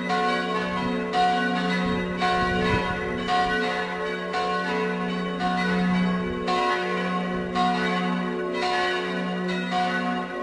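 Full peal of church tower bells: several swinging bells ringing together, their strikes overlapping in an irregular rhythm over a sustained low hum.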